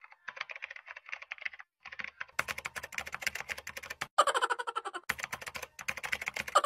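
Computer keyboard typing sound effect: fast clicks in runs, broken by brief pauses.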